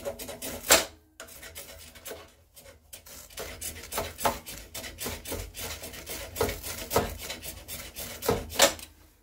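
Steel knife blade scraped repeatedly and irregularly down a ferro rod, each stroke a short scrape, throwing sparks to light a beeswax fire starter.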